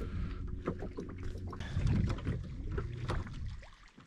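Small boat's motor running at trolling speed with a steady low hum, mixed with scattered clicks and knocks. The motor dies away near the end.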